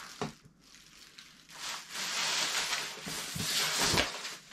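Plastic packaging wrap rustling and crinkling as it is handled, loudest in the second half, with a light knock near the start.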